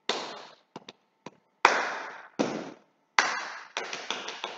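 Body percussion: a few separate sharp hand strikes, claps and slaps, then, about three seconds in, a fast run of slaps on the thighs, played as a drum pattern.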